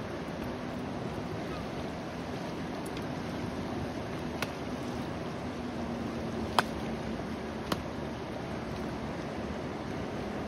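Swift, wide river rushing steadily past a gravel bank. Three sharp clicks or knocks break through it about halfway in, the middle one the loudest.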